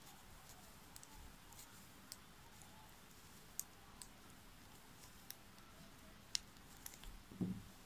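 Faint, sparse clicks of metal knitting needles touching as stitches are knitted, roughly one a second, with a soft low thump near the end.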